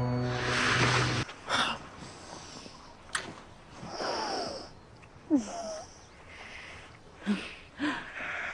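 A couple breathing heavily while kissing, with a few sharp lip smacks and short voiced sighs. A held music chord cuts off a little over a second in.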